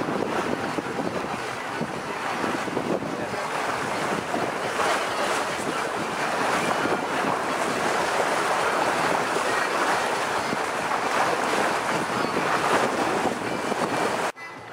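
Wind buffeting the microphone together with water rushing past a moving boat, a steady loud rushing noise that cuts off suddenly near the end.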